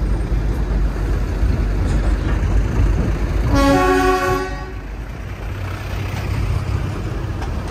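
Darjeeling Himalayan Railway toy train running with a steady low rumble. About three and a half seconds in, a horn sounds once for about a second.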